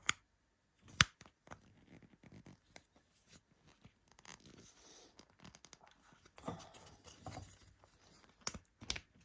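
Two plastic pieces of an Easythreed X1 filament stand being fitted together by hand: one sharp click about a second in, then light scraping, rustling and small clicks as the parts are worked into place.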